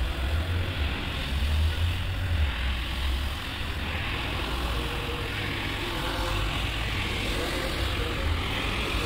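Single-disc rotary floor machine running steadily, its brush scrubbing a soapy, foam-covered rug: a deep motor hum, strongest in the first few seconds, under an even hiss.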